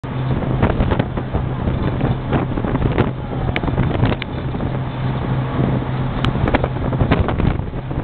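Wind rumbling and buffeting on the microphone with scattered crackles, over a steady low hum.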